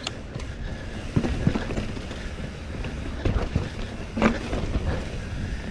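Mountain bike rolling over a rocky dirt trail: a steady rumble of tyres and wind on the microphone, with several short knocks and rattles as the bike hits bumps.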